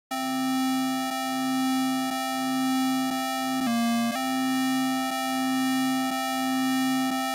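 A held electronic chord of sine-wave tones, the signal that draws Lissajous figures on an oscilloscope, starting abruptly just after the start. It swells in loudness about once a second and dips briefly in pitch a little past the middle.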